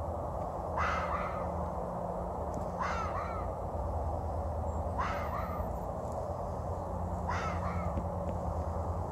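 A fox barking four times, about every two seconds, each bark a short two-note yelp.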